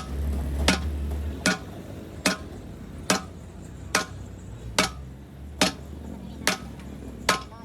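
Steady hammer blows on metal, nine sharp ringing strikes at a little over one a second.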